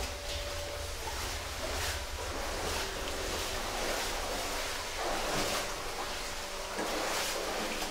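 A rushing noise over a low rumble, swelling and easing again several times, about every second or two.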